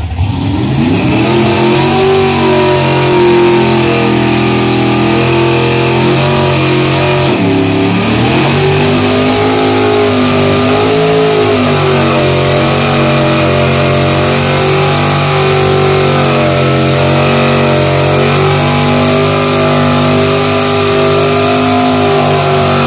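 Chevy Nova's engine held at high revs through a long burnout while the rear tyres spin on the pavement, over a steady hiss. The revs climb sharply in the first second or so, sag briefly about seven seconds in, then climb back and stay up.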